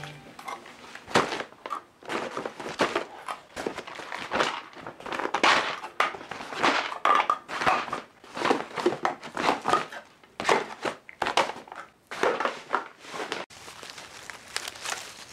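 Irregular crinkling and rustling with scattered knocks, the sound of things being handled, dying down near the end.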